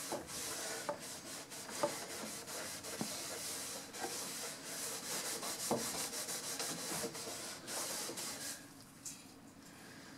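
Cloth rag rubbing wood stain into birch plywood in repeated wiping strokes, with a few light knocks, going quieter near the end.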